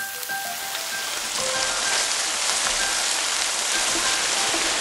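Beef rolls and chopped garlic sizzling in a hot frying pan: a steady hiss that grows louder about a second and a half in.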